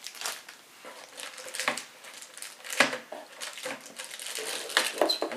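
Hands handling a cardboard box and its cardboard packing insert: scattered light rustles and knocks, the loudest about three seconds in.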